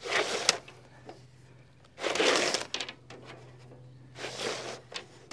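Fish tape being pulled off its reel and fed down into a hollow wall: three short bursts of scraping, sliding noise about two seconds apart.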